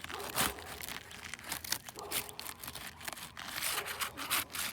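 Asphalt roof shingles scraping and crackling as a roof snake is worked in under them to reach the nails: a run of irregular scratchy scrapes and clicks.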